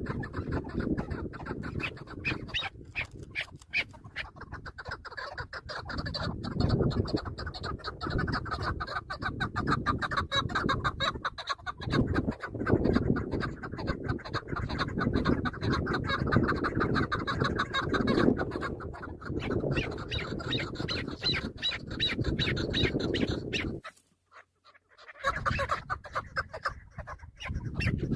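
Chukar partridges clucking in a rapid, continuous run of calls, which break off for about a second near the end.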